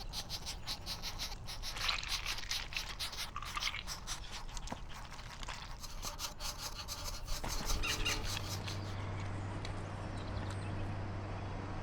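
Green woodpecker pecking at wood, rapid sharp taps about five a second, as it works a breeding hole in an old tree. The pecking stops about seven and a half seconds in, giving way to a steady low hum.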